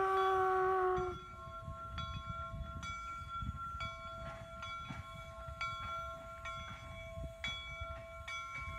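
Replica 1860s steam locomotive sounding its whistle, a chord of several tones that sags slightly in pitch and cuts off about a second in. Its bell then rings steadily at about two strokes a second over a low rumble as the engine moves slowly.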